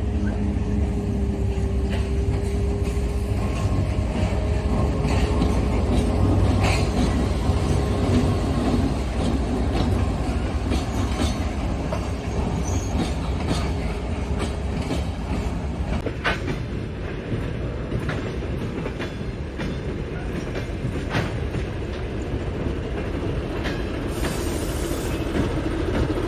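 Train running on rails: a steady low rumble with scattered sharp clacks of the wheels over the rail joints.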